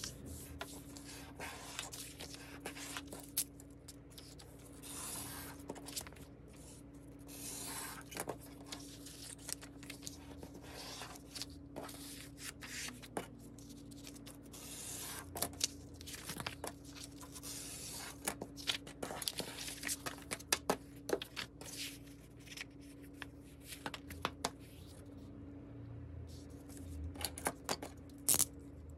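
Sheets of kraft paper handled on a cutting mat: repeated rustling swishes as they are folded, slid and squared up, with sharp crinkles and taps, all sped up to double speed. A faint steady hum runs underneath.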